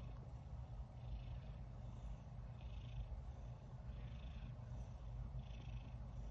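Domestic cat purring close to the microphone: a steady low rumble, with faint breathy swells recurring about every second and a half.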